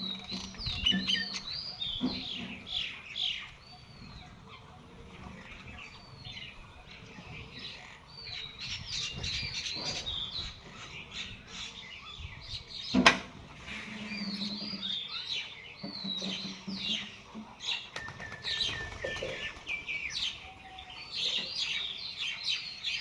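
A group of small birds chirping and twittering steadily in quick, sliding notes, with one sharp knock about thirteen seconds in.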